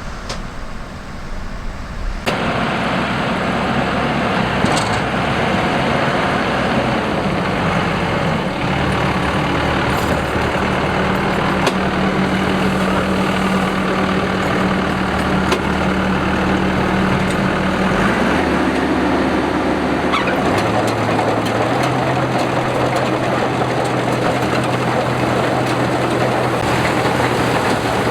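Combine harvester running, a steady engine hum under a loud even mechanical rush. The noise jumps up suddenly about two seconds in, and the engine's note shifts a few times after that.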